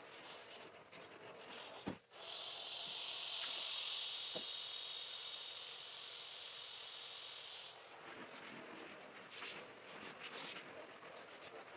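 A click, then a steady high-pitched hiss of pressurized cleaning spray for about six seconds that cuts off suddenly, followed by two short spurts near the end.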